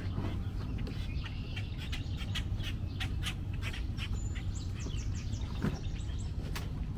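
Waterfowl calling in short squawks and chirps, with a quick run of calls about four and a half seconds in, over a steady low rumble.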